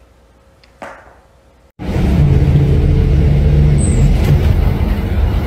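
Steady low drone of a Higer coach bus heard from inside the passenger cabin: engine and road noise. It cuts in suddenly about two seconds in, after a quiet stretch.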